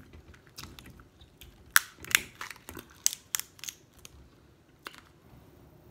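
Boiled crawfish shell cracking and crackling as the crawfish is twisted and pulled apart by hand: a run of sharp cracks, loudest about two seconds in, with a few more around three seconds.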